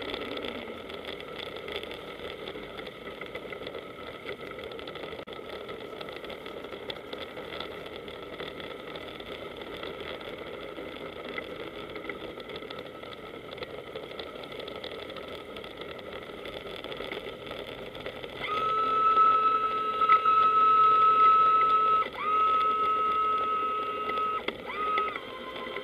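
Powerboat engine idling steadily. About eighteen seconds in, a much louder, steady high-pitched whine starts with a quick rise in pitch. It breaks off and restarts once, stops, then gives one last short burst near the end.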